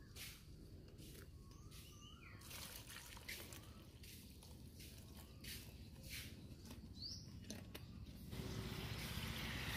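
Water poured from a plastic bottle onto the heating pack of a self-heating hot pot, splashing and dripping, with birds chirping. Near the end a steady hiss comes in.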